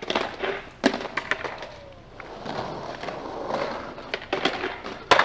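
Skateboard on concrete: the board grinds a concrete ledge and its wheels roll over rough cobbled ground. Sharp clacks of the board come about a second in and, loudest, near the end.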